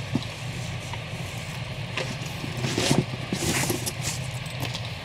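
Comic books being pulled out of a cardboard shipping box and handled: paper and cardboard rustling and sliding, loudest about three seconds in, over a steady low hum.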